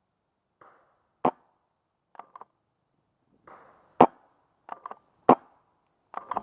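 Empire Sniper pump-action paintball marker fired three times, sharp loud cracks a second or so apart. Each shot is followed by a quick double click of the pump being racked back and forward.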